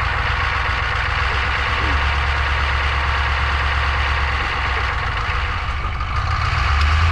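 Chevy truck's 6.2-litre V8 diesel idling shortly after a hard cold start. Its low rumble swells for a couple of seconds midway and again near the end.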